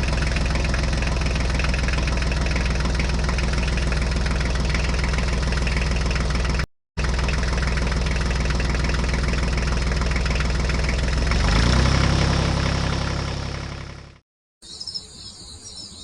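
Diesel-type tractor engine idling with a steady, knocking beat. About three-quarters of the way through it revs up briefly, then fades out, and a quieter, different sound follows near the end.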